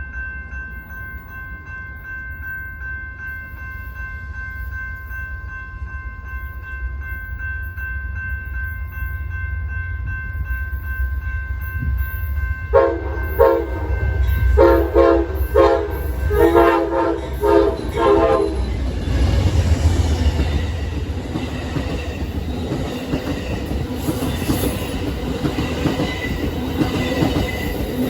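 A locomotive approaches with a low rumble that grows steadily louder, then sounds its Nathan K5LA five-chime air horn in several chord blasts a little before halfway. The train then passes with a steady rush and wheels clattering over the rail joints.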